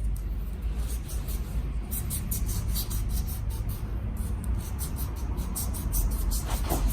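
Hand-tool work on a scooter's rear wheel assembly played back fast: a dense, rapid run of scrapes and clicks of tools on metal over a low steady rumble.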